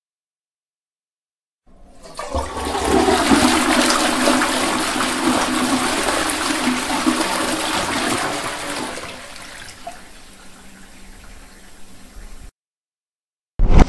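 Toilet flushing: a rush of water starts about two seconds in and swells quickly. It then tails off into a quieter hiss that cuts off suddenly. A brief loud sound follows right at the very end.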